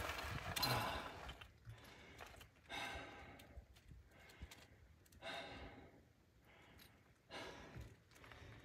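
A hiker's laboured breathing at over 3,200 m: four breaths, about two seconds apart.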